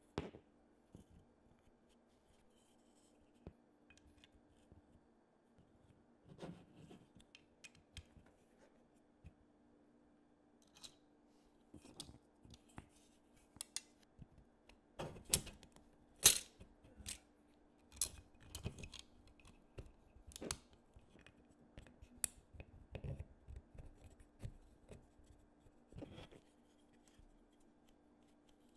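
Irregular snips, clicks and rustles of hand work on small parts, such as cutting and handling wire or tape, thickest and loudest through the middle. A faint steady hum runs underneath.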